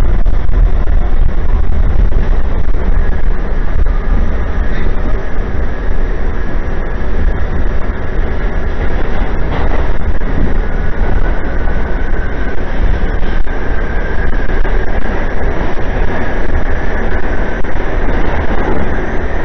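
A New York City subway car running through a tunnel, heard from inside the car: a loud, steady rumble and rattle of the wheels on the track.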